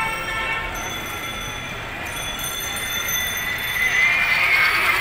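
Vehicle horns sounding in street traffic, with one louder horn held near the end.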